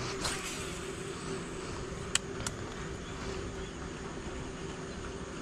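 A steady low motor-like hum, with a brief swish just after the start and two sharp clicks a third of a second apart, about two seconds in.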